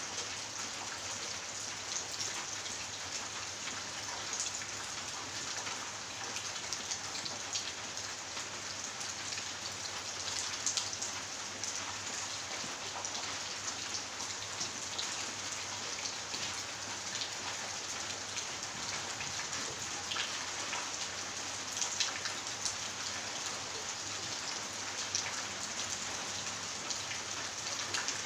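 Steady rain falling, with many separate drops ticking on hard surfaces close by.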